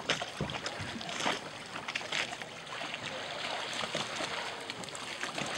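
Water splashing and lapping, a steady wash broken by many small, irregular splashes.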